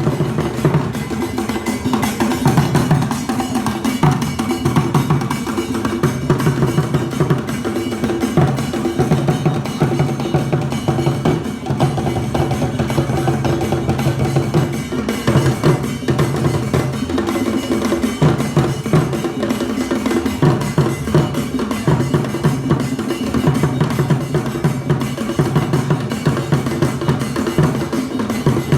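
Kete drum ensemble, the Akan royal court drumming, playing a fast, dense interlocking rhythm with deep drum tones recurring under quicker, sharper strokes.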